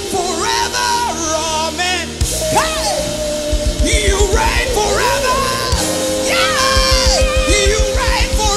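Live worship band: a singer's wordless vocal runs over held keyboard chords, with the drums coming in about two seconds in on a fast, steady kick-drum beat.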